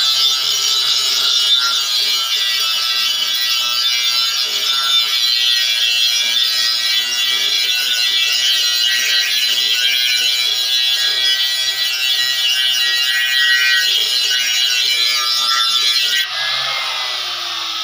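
A small electric motor spins an abrasive grinding wheel against the edge of a steel cutting blade, giving a steady high grinding hiss as the blade is sharpened. Near the end the grinding stops abruptly, and the motor's whine falls in pitch.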